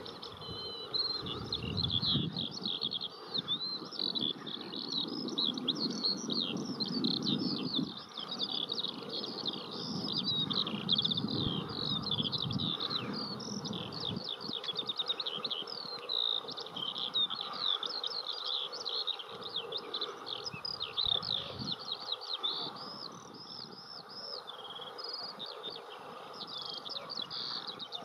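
Birdsong: a fast, high, twittering song that runs on without a break, over a low rumble that is stronger during the first half and then dies away.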